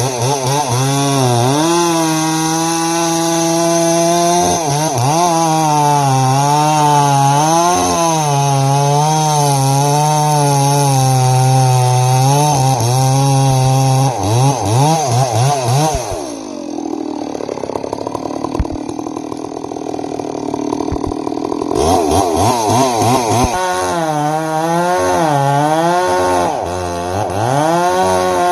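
Chainsaw cutting into a gum tree at high revs, its engine pitch wavering up and down as it works. For several seconds past the middle the note drops lower and rougher, then rises again.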